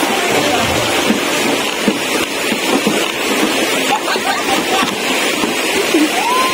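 Steady outdoor rushing noise with no clear rhythm, continuous throughout.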